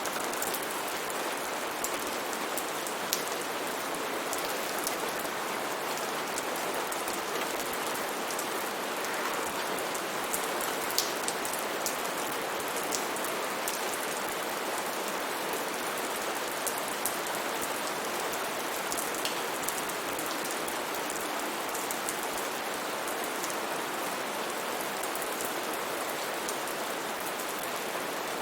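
Steady rain falling, an even hiss with many close, sharp drop impacts on a surface.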